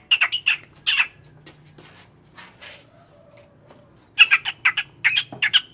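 Caged songbirds chirping in quick runs of short, sharp chirps, in the first second and again from about four seconds in.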